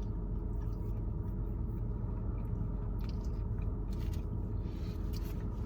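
Steady low rumble of a car idling, heard inside the cabin, with a few faint chewing sounds.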